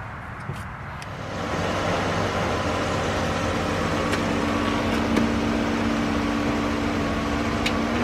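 A 2018 Dodge Journey's 3.6 L Pentastar V6 running, swelling louder about a second in as the car is driven down off the ramps, then holding steady with a faint hum.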